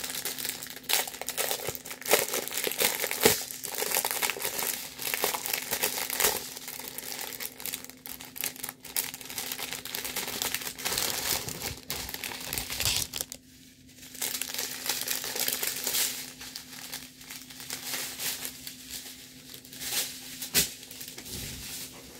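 Clear plastic bags of diamond-painting drills crinkling and rustling as they are handled and opened, in dense irregular crackles with a brief pause about halfway through.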